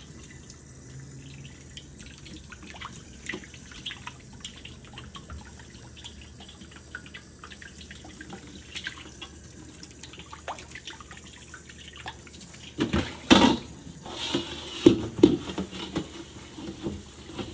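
Water dripping and small wet sounds in a steel sink as the wet steel wok is wiped with a paper towel, with many small scattered ticks. About 13 seconds in there is one loud short knock or clatter, followed by louder, irregular rubbing and wet swishing.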